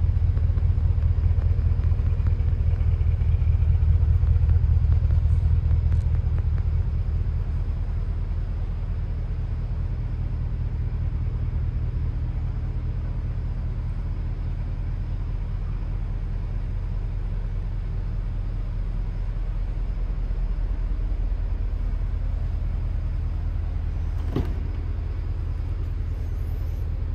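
Bentley Continental GT V8's twin-turbo 4.0-litre V8 idling with a steady low rumble. It is a little louder for the first several seconds, then settles lower. A single short click comes about 24 seconds in.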